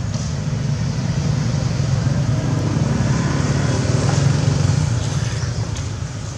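Road traffic: a passing vehicle's low engine rumble that grows louder, peaks about two-thirds of the way through, then fades.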